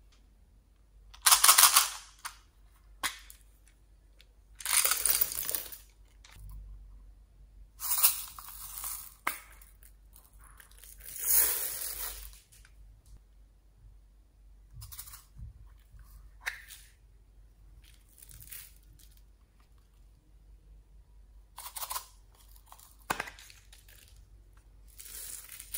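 Small beads and glitter tipped out of plastic toy containers onto slime: about six rattling, hissing pours of a second or so each, with a few sharp clicks of plastic lids and cases between them.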